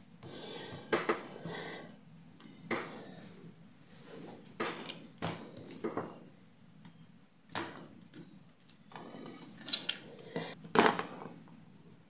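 Tablet circuit board and parts being handled on a workbench: irregular clicks, taps and rubbing, with the loudest knocks clustered near the end.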